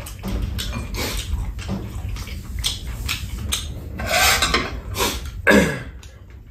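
Eating at a table: spoons and chopsticks clicking against bowls, with a few louder slurping or mouth sounds about four and five and a half seconds in.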